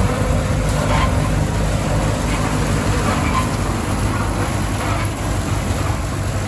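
Lamborghini R1.55 DT tractor's diesel engine running steadily, driving a Taarup flail mower that cuts grass and blows it up a chute into a trailer.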